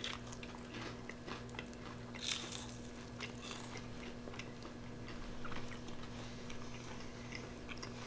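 Close-up chewing and crunching on crispy, flour-battered deep-fried redfin pike: many small crunches over a steady low hum.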